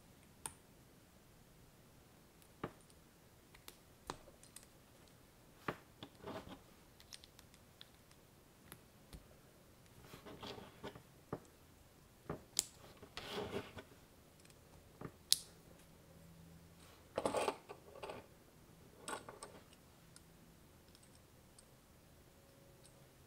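Plastic clone-LEGO bricks and Technic parts being handled and snapped together: scattered sharp clicks with short rustling, clattering flurries of pieces, the loudest about halfway through and again about three-quarters of the way in.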